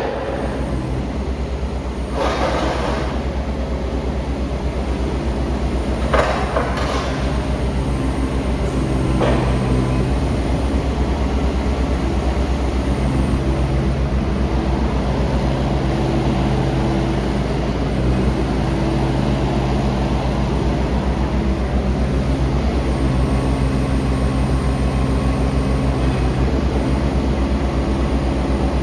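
Diesel engine of a 2018 JCB 15C-1 mini excavator running steadily. A humming note comes and goes several times over it, and there are three short hissing bursts in the first ten seconds.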